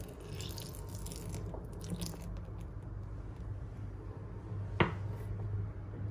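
Milk poured from a glass bowl into whipped cake batter in a stainless steel bowl, making a wet, crackly splashing for the first couple of seconds. About five seconds in comes a single sharp knock.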